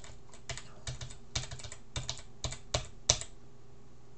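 Computer keyboard typing: irregular keystrokes in short clusters as a terminal command is typed, the last stroke about three seconds in the loudest, then the typing stops.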